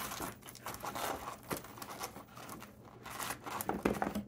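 Knife sawing through the crunchy fried crust of Korean rice hot dogs, an irregular run of scratchy, crackling strokes.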